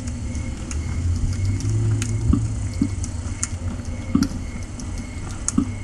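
Cats purring: a steady low rumble, with a few soft clicks and light taps over it.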